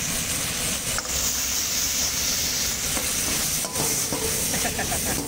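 Sauce-coated chicken 65 sizzling in a metal wok as it is stirred and tossed, with a steady hiss and the ladle clinking against the wok a couple of times.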